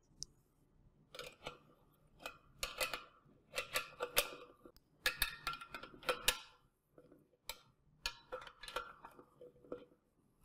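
Wrench tightening the M8 nuts on a radio's pole-mount bracket: runs of rapid metallic clicks in several bursts, with short pauses between them as the wrench is swung and reset.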